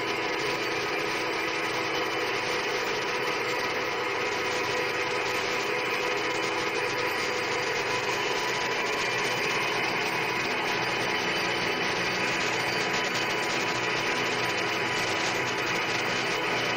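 Centre lathe running steadily with its chuck spinning while a single-point tool, fed in by hand on the carriage and cross slide, cuts a U-shaped groove into a metal bar: an even machine whir with several steady tones.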